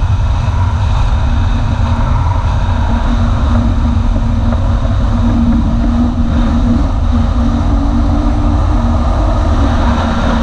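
Personal watercraft (jet ski) engine running steadily under way, with heavy wind rush over the microphone.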